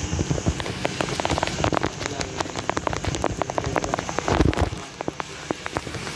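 Handling noise on a phone: fingers rubbing and tapping over the microphone make a dense, irregular crackle of clicks, with a louder scrape about four seconds in.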